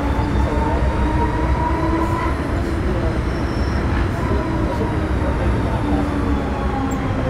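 MTR Metro Cammell M-Train (CT-Stock) electric multiple unit running: a steady rumble of wheels on track under the faint whine of its GEC GTO chopper traction equipment.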